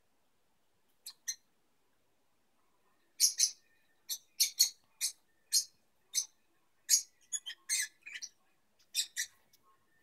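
Lovebirds chirping: two short, high chirps about a second in, then from about three seconds on a quick, irregular string of sharp chirps, several a second.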